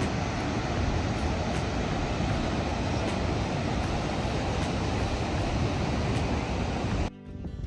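Ocean surf breaking on a rocky shore: a steady rushing noise with wind rumbling on the microphone. It cuts off suddenly near the end.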